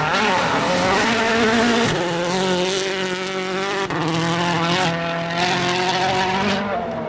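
A 2013 World Rally Car's 1.6-litre turbocharged four-cylinder engine running hard at high revs. The engine note holds level and then steps to new pitches several times, as with gear changes.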